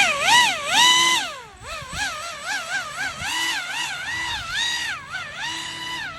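Electric motor and fan of a Pro Boat AeroTrooper 25-inch RC airboat, whining loudly. The pitch rises and falls over and over in short swells as the throttle is worked.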